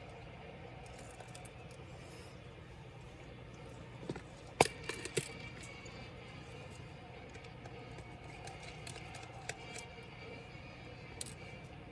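A few sharp clicks and taps about four to five seconds in, with fainter ticks later, over a steady low hum: small tools and laptop parts being handled during disassembly.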